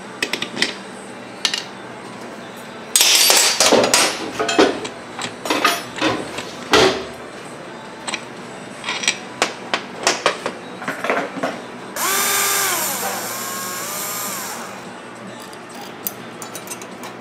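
Cordless drill-driver running in two short spurts about twelve seconds in, driving screws that join the halves of a Husqvarna 254xp chainsaw crankcase. Before it come metal clinks and a few seconds of rattling from small screws and hand tools being handled.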